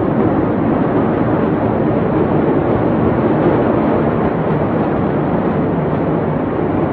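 Steady, even rushing roar with no distinct bangs or voices, the open-air sound picked up by a phone filming a large smoke plume from a port warehouse fire.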